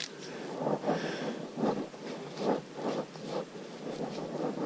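Footsteps on a dirt forest trail, a dull thud about every second, with the rustle and rubbing of the body-worn camera as the walker moves.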